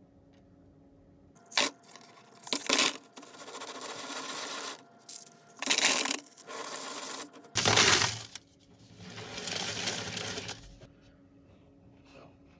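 Handfuls of quarters dropped into an open-ended cardboard Pringles can on a metal surface, clinking and rattling as they pile up inside. It comes in several separate bursts, starting about a second and a half in, with the loudest burst about eight seconds in.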